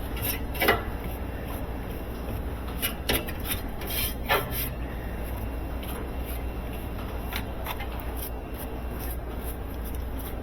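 Irregular rubbing and scraping strokes as dirt and cobwebs are wiped off a washing machine's cabinet, over a steady low hum.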